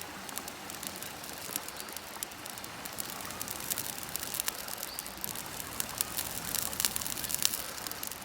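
Campfire crackling, with a steady hiss and many sharp pops that come thicker and louder in the second half.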